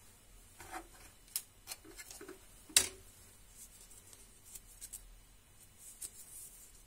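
Small handling clicks and knocks of a metal safety razor and its case on a desk, with one sharp click a little under three seconds in. After that come faint crinkling ticks of a paper-wrapped double-edge razor blade being handled.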